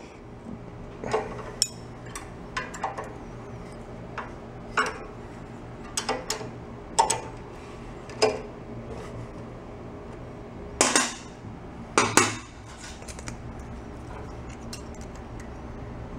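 Steel wrenches clicking and clinking against the rocker-arm adjuster and lock nut of a small overhead-valve engine as the valve lash is set. The clinks are scattered, with two louder clanks about two-thirds of the way through, over a steady low hum.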